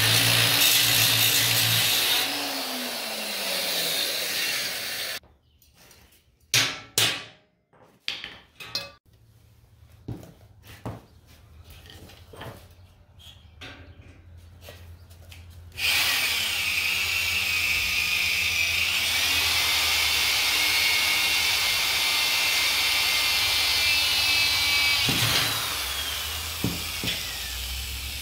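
An angle grinder cuts steel bar and then spins down after about two seconds, followed by a stretch of scattered clicks and knocks. From about halfway through, an electric drill bores into steel, running steadily with a motor whine and easing off near the end.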